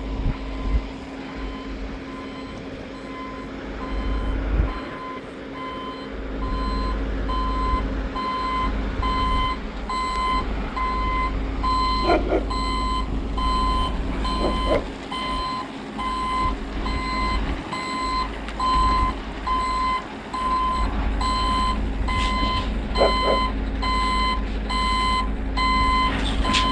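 Construction machine's reversing alarm beeping about once a second over its diesel engine running steadily. The beeping starts a few seconds in, and a few brief sharp sounds from the work break in.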